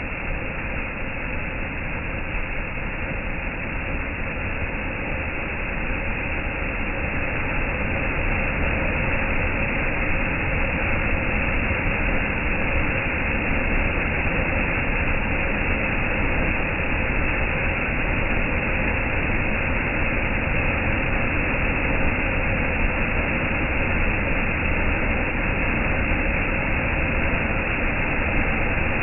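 Peacock fan fountain firework spraying several jets of sparks: a steady hissing rush that grows a little louder about seven seconds in.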